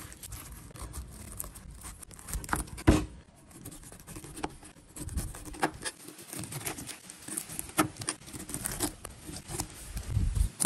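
Crisp crunching and crackling as a cleaver-shaped M42 high-speed steel knife slices down through a pineapple's tough rind, in a string of irregular cuts with a few sharper clicks.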